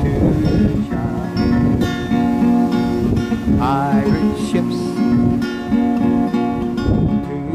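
Acoustic guitar strummed in a steady rhythm of chords: an instrumental passage between sung verses of a folk song.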